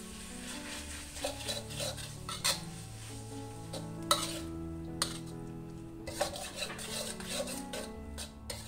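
Metal spatula scraping along and clinking against a wok while stir-frying instant noodles, with repeated scrapes and several sharp clanks. Soft background music runs underneath.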